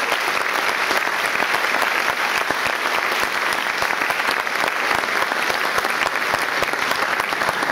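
Concert audience applauding: dense, steady clapping from many hands.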